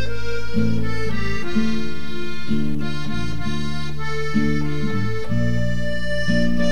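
Instrumental background music: a melody of held, reedy notes over sustained low chords at an even, steady loudness.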